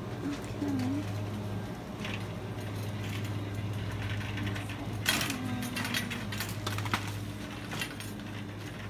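Shop-floor ambience: a steady low hum, with a short spell of sharp clattering clicks about five seconds in.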